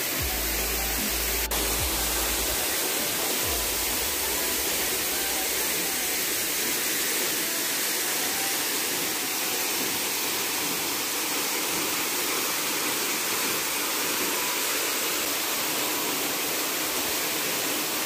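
Steady rushing of a waterfall plunging from a cliff into a rock pool.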